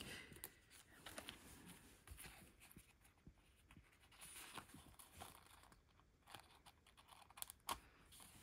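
Near silence with faint, scattered rustles and light taps of cardstock being handled, one tap a little louder near the end.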